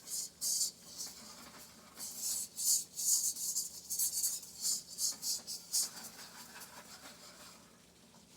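A utensil scraping and stirring in a pan, working flour into melted butter for a roux: a run of short, irregular scraping strokes that thin out near the end.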